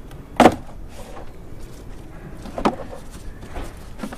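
Plastic airbox being pulled up and worked loose from its rubber mounts: a sharp knock about half a second in, another knock past two seconds, and a faint one near the end, with plastic rustling and handling noise between.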